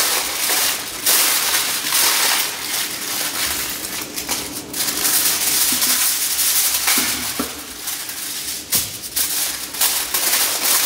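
Aluminium kitchen foil crinkling and crackling as it is handled and folded around a whole beet, in several runs with short breaks.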